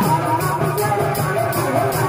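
Live Sambalpuri kirtan music: a steady beat of about three bright, jingling strikes a second over drums, with a melody line gliding above.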